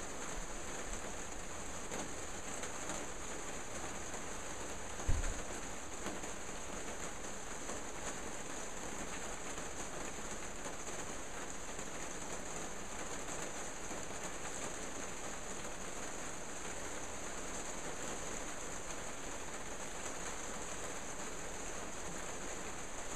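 Rain falling steadily, a continuous even hiss, with one short low thump about five seconds in.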